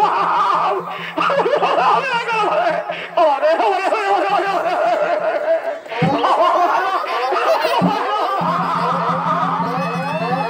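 Live Chhau dance music: a wavering, reedy melody, typical of the shehnai, over a steady low drone. A few sharp drum strokes come in the second half.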